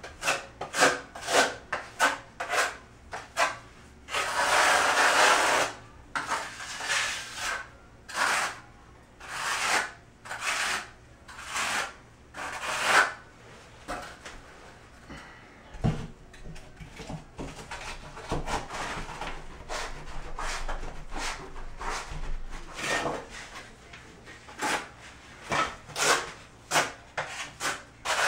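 Hand work with building materials: a run of short scrapes, rubs and light knocks as drywall shims and backer-board pieces are fitted, with a longer rasping scrape about four seconds in and a dull thump about sixteen seconds in.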